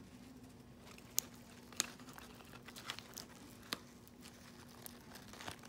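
Faint handling noise from gloved fingers squeezing the crumbly contents out of an excised cyst: four sharp clicks, the loudest about a second in, over a low steady hum.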